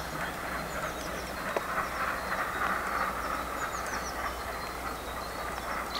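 Steam-hauled train running away along the line, a steady running noise, with repeated short high-pitched chirps over it.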